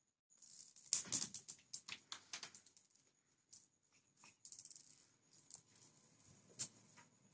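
Cats scuffling and scrabbling during play on a hard floor: irregular clicks and rustles, loudest about a second in, over a faint steady high-pitched whine.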